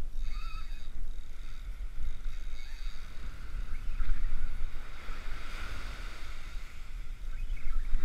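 Wind buffeting the microphone as a low, steady rumble, over small waves breaking and washing up the sand. The wash swells about halfway through.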